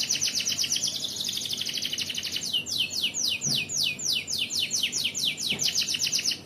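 Domestic canary singing hard in full 'gacor' song: a long, unbroken run of repeated falling whistled notes, several a second. About a second in it speeds into a rapid trill, then slows back to the separate notes, and the song breaks off at the end.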